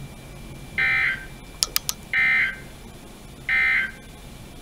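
NOAA Weather Radio SAME end-of-message code: three short bursts of warbling digital data tones about 1.3 s apart, signalling the end of the alert broadcast. A few sharp clicks fall between the first and second bursts.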